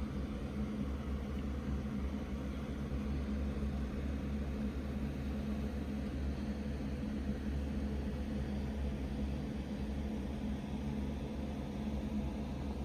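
Steady low electrical or mechanical hum with a faint hiss, unchanging throughout: room background noise from a fan or appliance.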